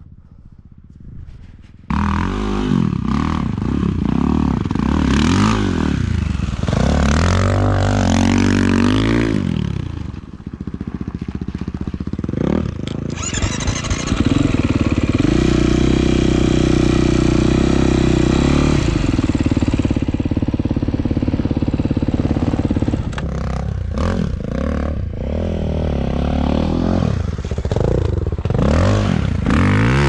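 Husqvarna 450 supermoto's single-cylinder four-stroke engine under way on loose dirt, revs rising and falling repeatedly, with a long steady high-rev pull in the middle. It comes in abruptly about two seconds in after a quieter start.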